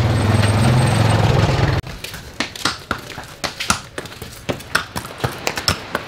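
An ATV engine running close by, stopping abruptly about two seconds in. After that, a mule's hooves clip-clop unevenly on a cobblestone lane.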